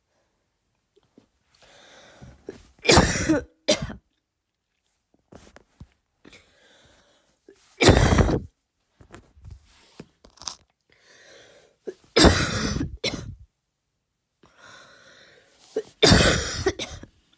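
A young woman deliberately coughing, trying for a barking cough that she says her lungs can't quite make. Four harsh cough bouts come about four seconds apart, some with a shorter second cough right after.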